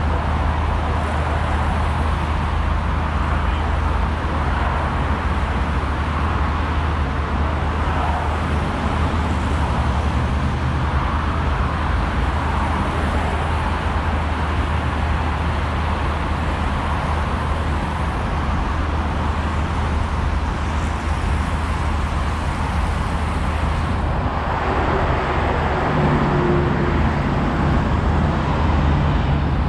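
Steady road traffic: cars and other vehicles running along a busy city street, with a continuous low rumble. About 26 seconds in, a vehicle engine's steady-pitched hum rises above the traffic.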